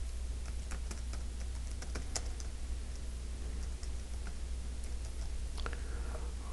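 Computer keyboard typing: a run of light, irregular keystroke clicks as a two-word label is typed, thinning out after about two and a half seconds with a few more clicks near the end, over a steady low hum.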